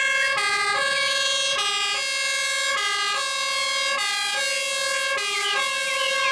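Austrian fire truck's two-tone siren, sounding steadily and switching back and forth between a higher and a lower pitch, one full cycle about every second and a bit.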